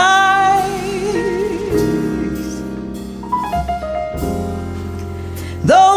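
A woman's sung note, held from the end of a line, dies away about a second in. Piano accompaniment then plays slow sustained chords of a gentle ballad, and the singing comes back in near the end.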